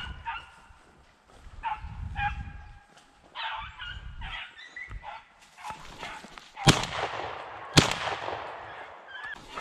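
Beagles baying on a rabbit, a string of short pitched yelps, then two shots from a Browning A5 semi-automatic shotgun about a second apart, each a sharp blast with a long echo.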